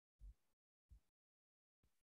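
Near silence, broken by three faint, brief low thumps.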